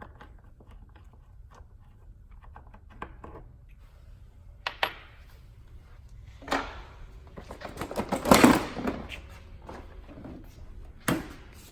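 Light clicking of a hand tool loosening a T30 Torx screw on a snowmobile's hood, then a few sharp knocks and a louder scraping rustle of plastic body parts being handled.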